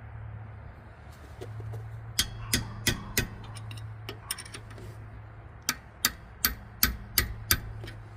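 Ratchet wrench clicking in two short runs of sharp ticks, about three a second, while the 14 mm caliper bolts are worked in. A steady low hum runs underneath.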